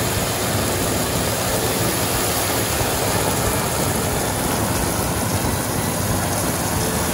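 Steady running noise of a machine, a low motor hum under a rushing hiss, as it pumps foam into the pool.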